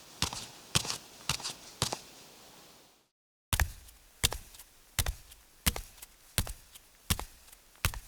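Footsteps walking, in two separate takes: first about two crisp steps a second that fade out around two seconds in, then after a short silence a slower run of heavier steps with more low thud, about one every 0.7 s.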